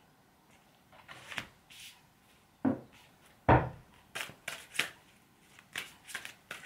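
Oracle card deck being handled and shuffled: two soft thumps, then a quick run of card flicks and snaps.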